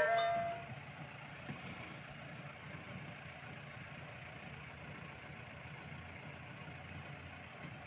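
Background music fading out in the first second, then a Mitsubishi L200 pickup's engine idling faintly as a steady low hum.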